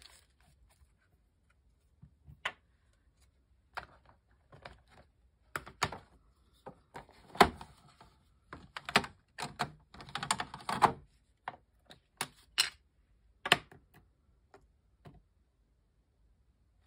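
Irregular clicks, taps and light knocks of craft supplies handled on a desktop, such as ink pad cases and a rubber stamp picked up, opened and set down, with a denser run of handling noise around ten seconds in.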